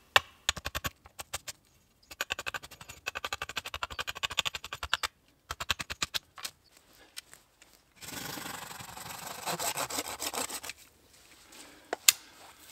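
A blade shaping a wooden stick into a digging stick: runs of quick, short scraping strokes on the wood, then about three seconds of continuous rasping, with one sharp knock near the end.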